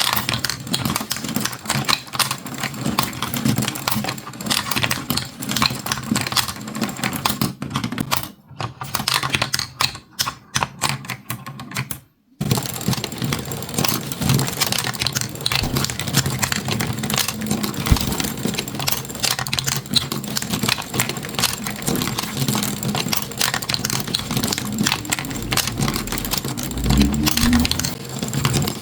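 Marbles rolling and clicking along a marble run in a rapid, dense clatter. The clatter thins out and stops briefly about twelve seconds in, then starts again.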